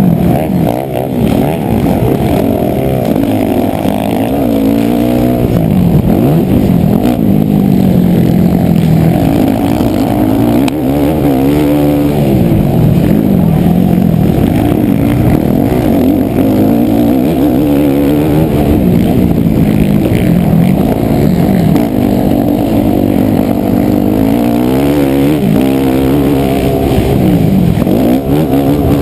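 Motocross dirt bike engine heard from the rider's helmet, revving up and down over and over as the rider accelerates, shifts and backs off through the turns and straights. The engine sound is loud and dull, with little in the higher range.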